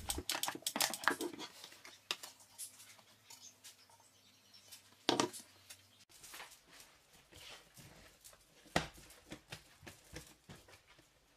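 Faint, irregular soft taps and knocks of yeast dough being worked out of a mixer bowl by hand and handled on a countertop, with a louder thump about five seconds in and another near nine seconds.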